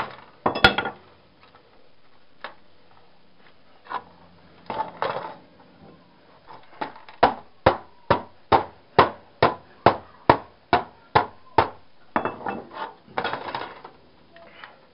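Hammer blows knocking a heatsink out of a scrapped TV: a few separate strikes, then a steady run of about a dozen evenly spaced strikes, a little over two a second, followed by metal clattering near the end.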